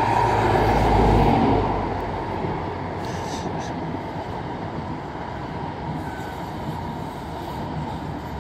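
InterCity 125 high-speed train passing close beneath the bridge: the leading Class 43 diesel power car loudest over the first second or so, then the coaches rolling by with a steady rumble.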